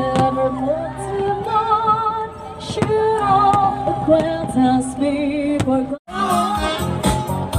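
Music with a woman singing a slow melody; it cuts out abruptly about six seconds in and another song starts.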